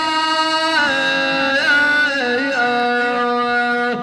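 A man's voice singing a mournful Arabic elegy, drawing out long held melismatic notes between lines of the lament, the pitch stepping down a little about halfway through.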